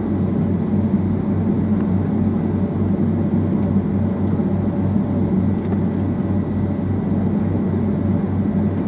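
Boeing 757-200 cabin noise: the steady, loud drone of the jet engines and airflow heard from inside the passenger cabin during departure.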